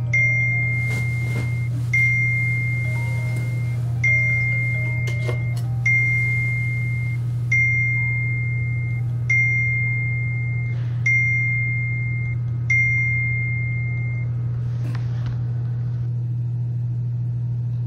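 Film soundtrack: a single high bell-like note struck about every two seconds over a steady low drone. The note stops about 14 seconds in, leaving the drone alone.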